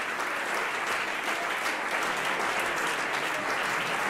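Applause from a group of people: dense, steady clapping.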